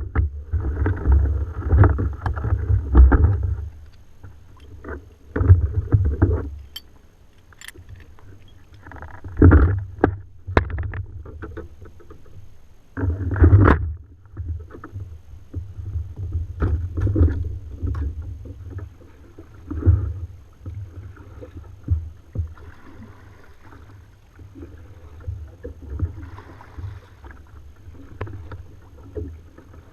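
Irregular knocks and low rumbles from an Ocean Kayak Trident 13 fishing kayak on the water. They come in bouts, loudest in the first few seconds and again around ten and fourteen seconds in, then fade to smaller knocks.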